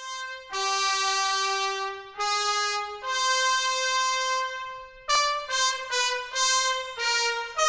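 Loud wind-instrument music: long held notes over a steady drone note, then a quicker run of shorter notes from about five seconds in.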